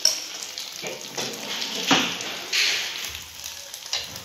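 Spoonfuls of egg-and-potato mixture sizzling in hot oil in a non-stick frying pan. A few sharp taps of the spoon against the pan are heard, and the hiss swells briefly about two and a half seconds in.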